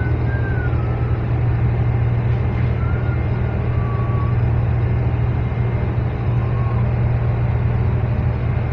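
Shrimp trawler's engine running steadily under way, a loud, even low drone with a churning wash over it. Faint short wavering high tones come and go above it a few times.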